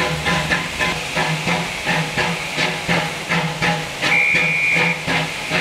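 Danish tank steam locomotive 656 chuffing steadily as it pulls away, about three exhaust beats a second, with a hiss of steam from the cylinder drain cocks. A short high whistle sounds about four seconds in, lasting under a second.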